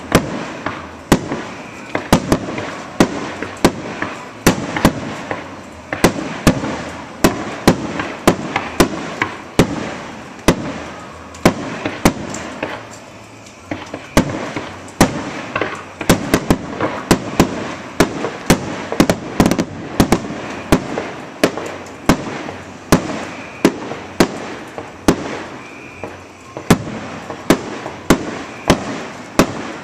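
Aerial firework shells bursting in a rapid, unbroken barrage: sharp bangs about two a second, with steady noise filling the gaps between the reports.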